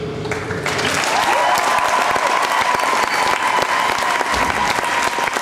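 Audience applause breaking out about half a second in, dense fast clapping that keeps up, with one long steady high note held over it for a few seconds.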